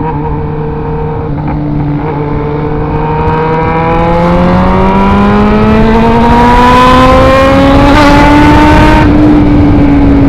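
Motorcycle engine pulling under steady acceleration, its pitch climbing slowly for several seconds, then levelling off and easing slightly near the end, with wind rush over the microphone.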